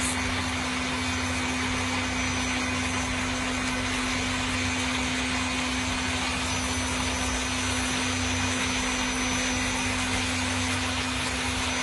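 Small electric blender motor running steadily at a constant pitch while blending cashew nuts with water. The noise of cashew pieces not yet broken down is still in it, a sign that it needs more blending.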